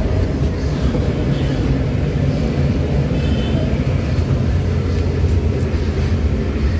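Suzuki DA17's three-cylinder engine running at idle, a steady low rumble that still idles rough and shaky with a new ECU board fitted, a sign the replacement unit does not suit the engine.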